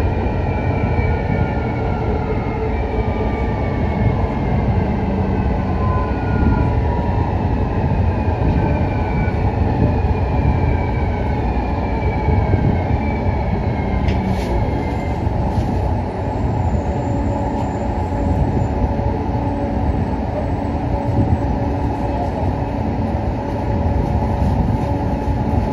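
Taipei Metro Circular Line EMU101 metro train running, heard from inside the front car: a steady rumble of wheels and running gear, with the traction motors' whine falling in pitch over the first fifteen seconds as the train slows. A few brief clicks come about fourteen seconds in.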